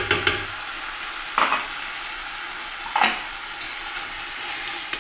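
Chicken pieces and onion sizzling as they fry in a stainless steel pot, with a spoon scraping and knocking against the pot a few times as they are stirred to keep them from burning.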